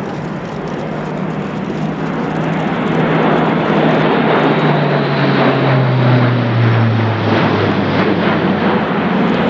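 Airbus A400M's four TP400-D6 turboprops with contra-rotating propellers running at display power as the aircraft passes, growing louder over the first few seconds. Near the middle the low propeller tone drops in pitch as it goes by.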